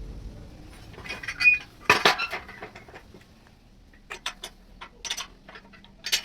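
Metal parts clinking and knocking together: a cluster of sharp knocks about two seconds in, then scattered lighter clicks.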